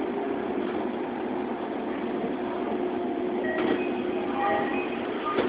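Toei Oedo Line 12-000 series linear-motor subway train, with its GTO VVVF inverter control, slowing along a station platform, heard from inside the car: steady running noise with a low steady tone. Short higher tones come in about three and a half seconds in, and there is a sharp click near the end.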